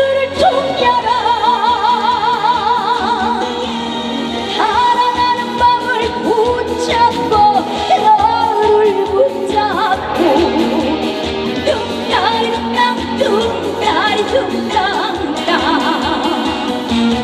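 Live trot band music played loud, with a lead melody that wavers in pitch over a steady beat.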